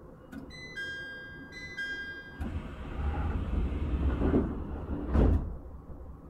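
Door chime inside an E127-series commuter train, two short ringing notes, then the sliding doors rumble shut and close with two thuds, the louder one about five seconds in.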